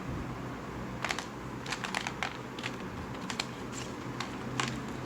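A series of short scratchy rustles and clicks from drawing supplies being handled and used on paper, over a low steady hum.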